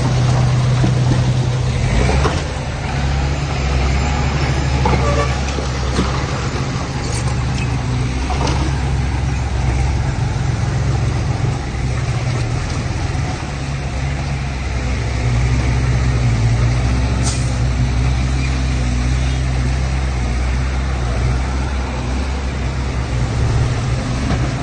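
Heavy diesel earthmoving machinery running steadily with a deep, droning hum that rises and eases in load, with a few short clanks and knocks.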